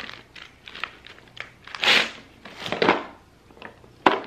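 Plastic packaging crinkling and rustling as bagged classroom manipulatives are lifted and shifted about inside a cardboard box, in several bursts, with a sharp knock just before the end.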